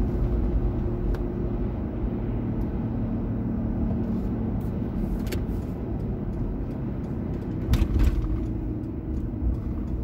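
Steady road and engine rumble inside a moving car's cabin, with two thumps close together about eight seconds in.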